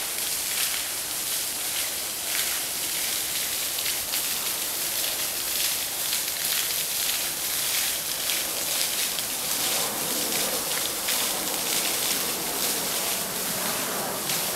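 A steady outdoor hiss, even and high, with faint crackles through it.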